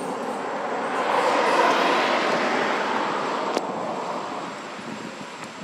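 A car driving past: a rush of road noise that swells, peaks about a second and a half in, and fades away over the next few seconds. A single sharp click comes about three and a half seconds in.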